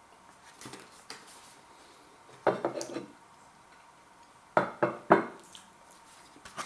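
Plate and cutlery clattering on a table: a knock about two and a half seconds in, then three quick sharp knocks about halfway through, with fainter clicks before.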